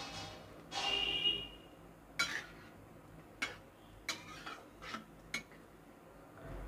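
A metal spatula stirring thick curry in an aluminium kadhai, scraping through the gravy and clinking against the sides of the pan several times at irregular intervals.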